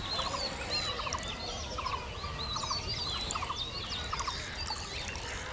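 Birds chirping and calling, with many short rising-and-falling chirps and a quick rattling call of three or four notes repeated every second or so.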